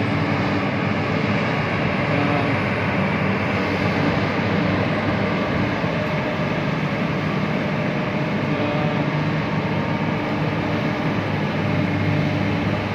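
JCB excavator's diesel engine running steadily under load, a constant low drone, as it lowers big bags of fish meal into a cargo ship's hold.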